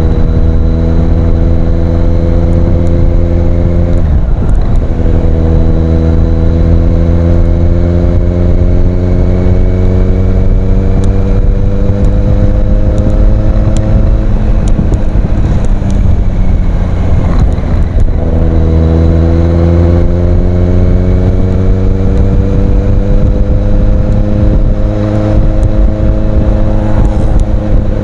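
Kawasaki Z800's inline-four engine through an Ixil aftermarket exhaust, pulling under load with its pitch climbing slowly. The pitch breaks and drops about four seconds in and again after a lull midway, like gear changes, then climbs again.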